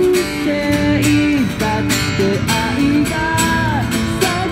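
Acoustic guitar strummed in a steady rhythm, about two strums a second, with a held melodic line over it.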